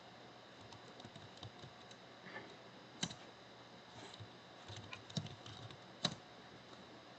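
Faint keystrokes on a computer keyboard: scattered, unhurried key clicks, with a few sharper presses about three, five and six seconds in.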